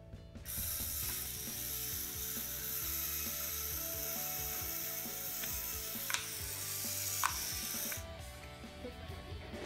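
LEGO Technic robot dog's electric motor driving its plastic gear train: a steady whirring clatter of gears with small clicks, starting about half a second in and stopping near the end. The gears drive the dog's wheels, jaw and wagging tail.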